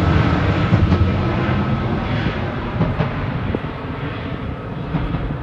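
Boeing 767 jet engines rumbling as the twinjet climbs away overhead, the noise slowly fading, with a few faint pops from the surging engine (compressor stalls).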